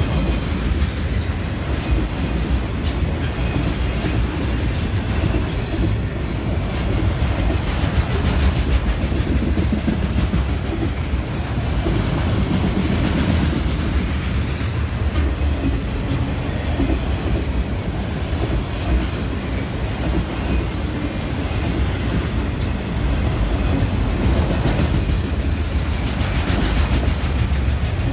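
Freight train of enclosed autorack cars rolling steadily past, the steel wheels clattering on the rails under a constant low rumble. Brief high wheel squeals come about five seconds in and again near the end.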